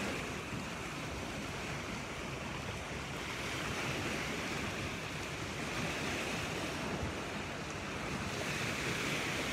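Small sea waves breaking and washing up on a sandy beach: a steady surf hiss that swells as each wave comes in, about every two to three seconds.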